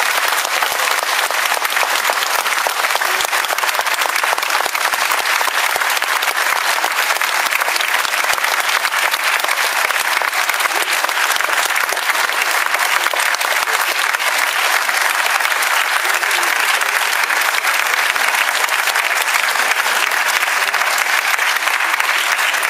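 Sustained applause from a large assembly of people, many hands clapping at an even level throughout. It greets the announcement of an election result.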